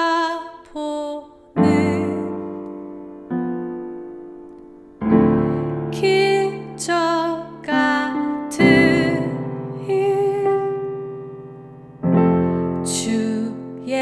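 Background music: a slow piano song, with chords struck every second or two and left to ring and fade, and a sung melody over them.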